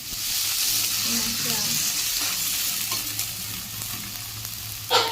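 Ghugni peas and spice paste sizzling in hot oil in a pan while being stirred. The sizzle eases after about three seconds, and there is a sharp knock near the end.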